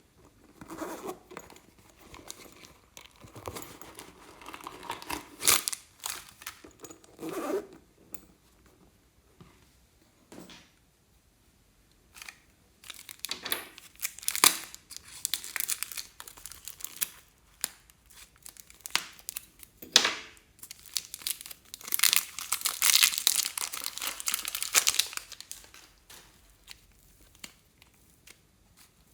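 Hands working clear slime: irregular bursts of sticky clicks and crackling noise with short pauses, densest and loudest about three-quarters of the way through.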